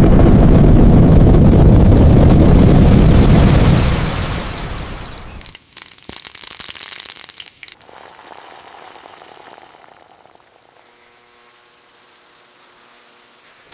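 Heavy rain with a deep rumble, loud for about the first four seconds and then dying away. Fainter rain noise follows.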